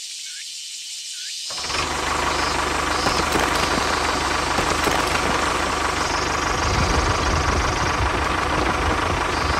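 Faint repeated high chirps, then about a second and a half in a tractor engine starts running steadily with a knocking drone.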